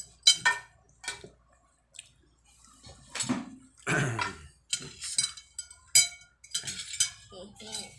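Metal spoon and fork clinking against a ceramic dinner plate while someone eats rice: a string of sharp, ringing clinks at irregular intervals.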